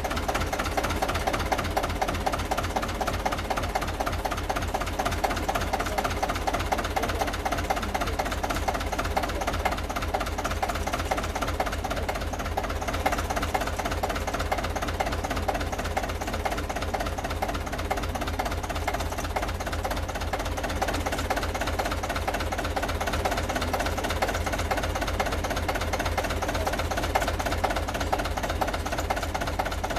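IFA Pionier tractor's diesel engine idling with a steady, even knocking beat.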